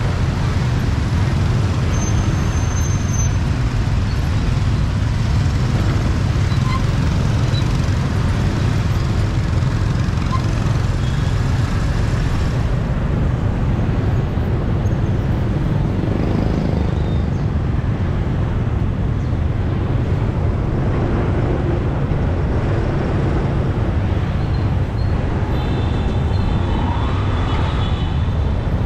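Steady street traffic noise from passing motor vehicles, heaviest in the low range.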